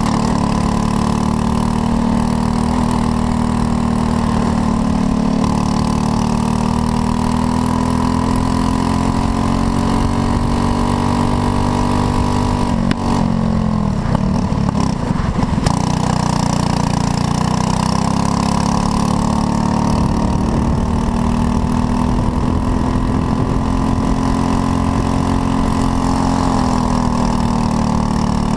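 Racing kart engine running hard at high revs, its pitch rising and easing through the corners. About halfway through, the revs drop away sharply and run rough for a few seconds, then build back up.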